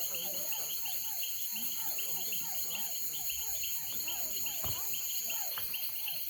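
Night chorus of crickets and other insects: rapid pulsing chirps, a steady high buzz that cuts off a little after five seconds, and a lower falling call repeated two to three times a second. A single short pop comes a little before five seconds.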